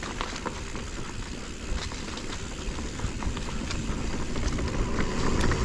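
Mountain bike rolling fast over rocky dirt trail: a steady crackle of tyres on grit and stones with low wind rumble and scattered small clicks and rattles from the bike, a little louder near the end.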